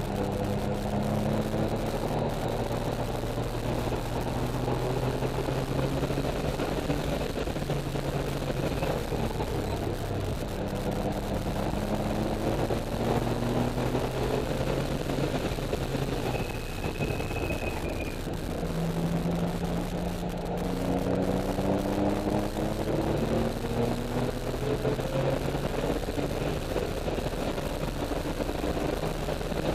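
Porsche 996 flat-six engine heard from inside the cabin under hard acceleration. Its pitch climbs steadily, drops back at each upshift or lift, and climbs again several times, over a steady bed of road and wind noise.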